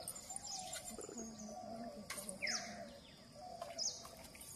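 Birds calling: several short high chirps and one quick falling whistle about two and a half seconds in.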